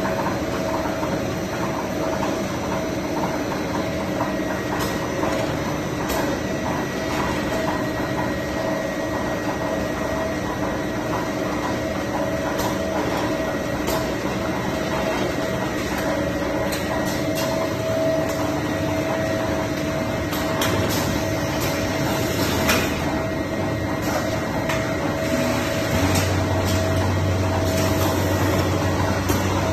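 Machinery of an automatic steamed-bun production line running: a steady mechanical hum with scattered clicks and clacks. A deeper hum joins near the end.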